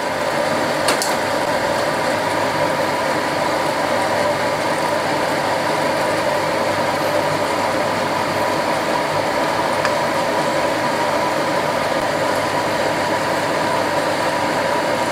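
Steady mechanical hum with a hiss, unchanging throughout, with one light click about a second in.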